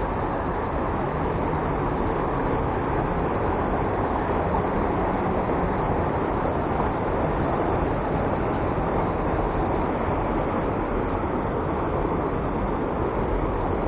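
Muddy floodwater rushing over a small concrete check dam on a river running high after heavy rain, a steady, dense rush with no let-up.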